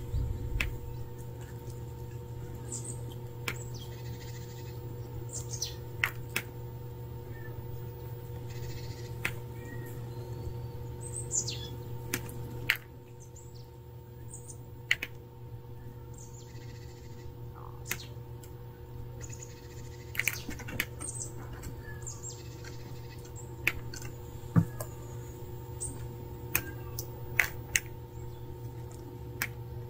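Small birds chirping now and then, short calls that sweep downward in pitch, over a steady low hum and scattered sharp clicks.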